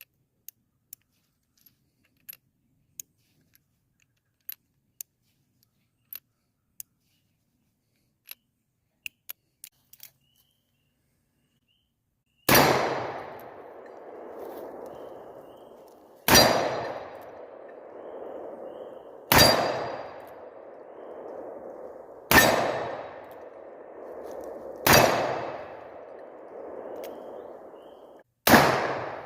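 Pietta reproduction Colt Single Action Army revolver in .45 Colt: a run of light metallic clicks for about ten seconds, then six shots about three seconds apart, each with a long echoing tail.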